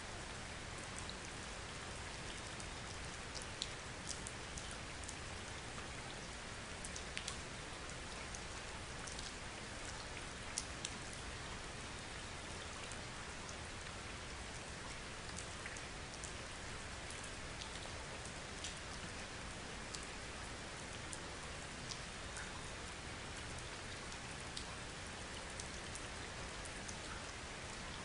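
A steady, even outdoor hiss with scattered faint sharp ticks.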